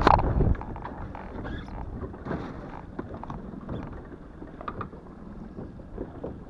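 Steady wind buffeting the microphone on an open boat at sea, with scattered small knocks and clicks. A loud bump and rustle of handling close to the camera comes right at the start.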